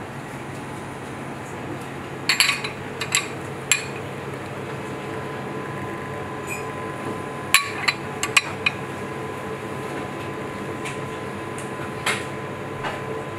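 A metal spoon clinks and taps against a porcelain plate in short clusters of sharp clicks as garnish is set in place: a few about two to four seconds in, more about halfway, and two near the end. A steady kitchen hum runs underneath.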